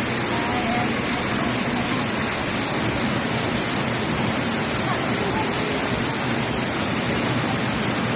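Steady rush of a waterfall on a mountain stream, an even, unbroken hiss of falling water.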